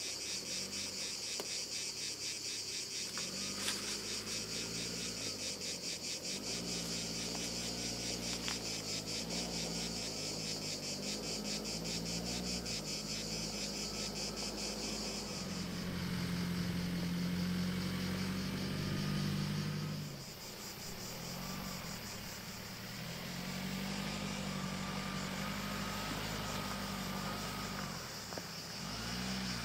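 Insects chirring in a steady, fast-pulsing high buzz, loudest in the first half. Under it is the low hum of a vehicle engine that rises and falls in pitch and eases off briefly about twenty seconds in.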